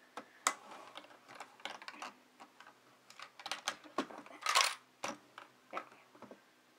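Hand-built Lego gumball machine being handled while it is reloaded: scattered plastic clicks and knocks, with a louder rattle of small objects dropping about four and a half seconds in.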